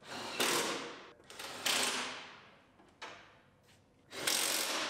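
Cordless power tool run in several short bursts, driving in the bolts that hold a pickup's front fender in alignment.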